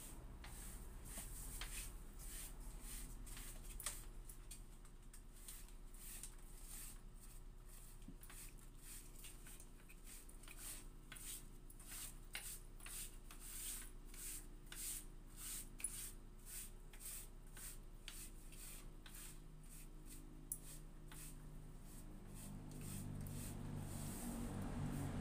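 Cloth wiping a tabletop in quick, repeated rubbing strokes, about two a second. A low rumble builds near the end.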